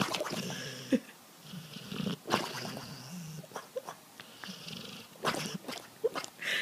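A sleeping dog breathing in slow, rough, snore-like breaths, each breath drawn out over a second or so, with a few short clicks among them.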